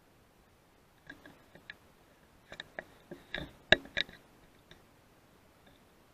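Handling noise from a rifle and its scope: a scattered run of small clicks and knocks as the rifle is shifted, the sharpest knock about three and a half seconds in.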